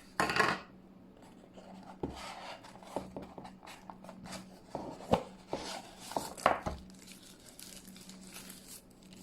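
Packaging and accessories being handled during unboxing: a short rustle at the start, then scattered light knocks and clicks, over a faint steady hum.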